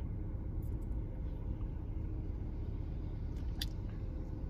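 Steady low rumble inside a car's cabin, with a couple of faint clicks.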